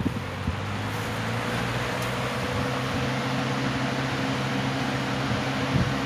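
Red Wizard box fan running on high speed: a steady motor hum under the even rush of air from its blades.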